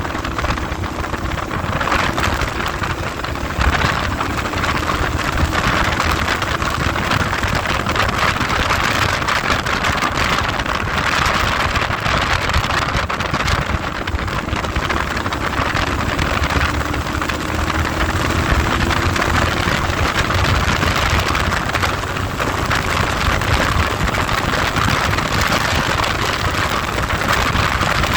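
Heavy wind noise buffeting the microphone on a moving ride, over a vehicle engine running underneath whose pitch climbs slowly a few times.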